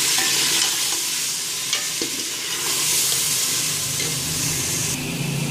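Chicken and spice masala sizzling hard in hot oil in a steel pot just after a cup of water has been poured in, while a steel ladle stirs it and clinks against the pot a few times. The sizzle eases off near the end.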